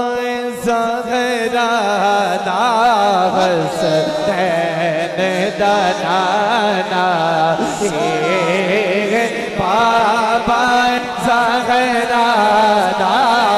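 A man sings a naat into a microphone, drawing out long, wavering ornamented notes without clear words, over a steady low held tone.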